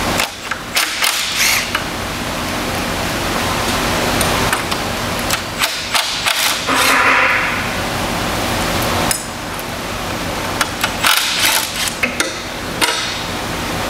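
Cordless impact wrench hammering bolts loose from the end bracket of a 200 HP electric motor in three short bursts of rapid clacking, over a steady rushing background noise.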